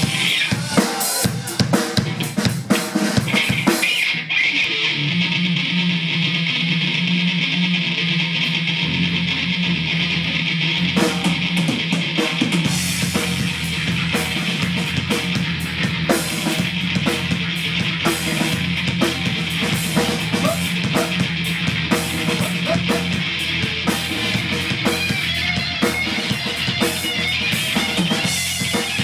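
Alternative rock band playing an instrumental passage on drum kit and distorted electric guitars. The drums play alone for the first few seconds, then the guitars come in about four seconds in and the full band plays on.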